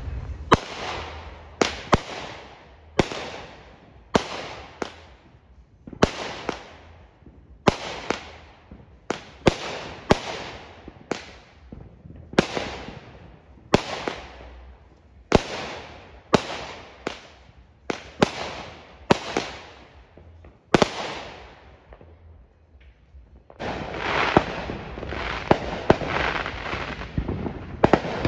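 Aerial fireworks going off: more than twenty sharp bangs in quick succession, about one a second, each trailing off. After a short lull, a dense stretch of crackling and popping.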